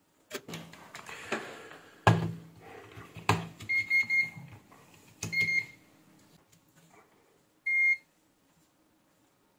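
Knocks and clatter of tools being set down and picked up on a workbench, the loudest about two seconds in, then a UNI-T clamp meter's continuity buzzer giving three short, high beeps as its probes are tried on the pins of a desoldered micro switch.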